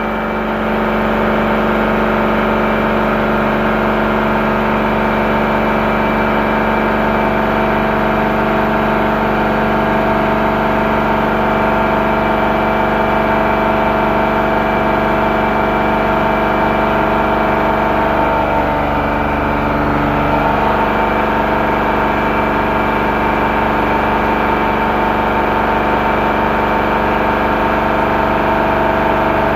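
Machinery running steadily: a constant engine-like hum with several steady tones, whose pattern shifts briefly about two-thirds of the way through.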